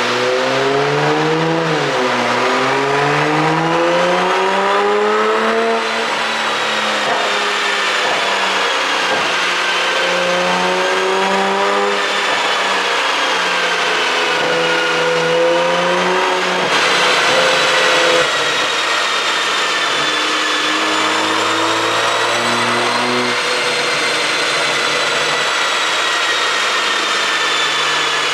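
BMW X5 xDrive40i's turbocharged 3.0-litre inline-six, running an aftermarket pop-sound ECU tune, pulls through the gears. Its pitch climbs and then drops at each upshift, about two and six seconds in, then rises and falls at lower revs, with a thin high whine above the engine note.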